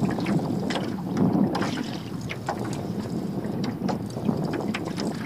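Water lapping and slapping against the hull of a small open dinghy, with irregular light knocks and splashes and wind on the microphone.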